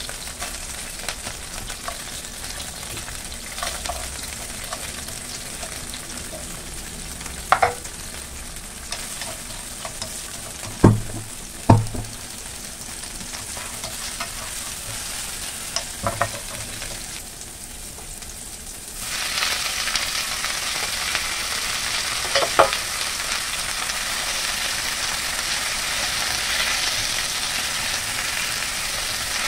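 Oil sizzling in a non-stick frying pan as shallots, garlic and red chillies fry and are stirred with a spatula, with a few sharp knocks of the utensil against the pan. About two-thirds of the way through, the sizzle suddenly grows much louder as kailan greens are stir-fried.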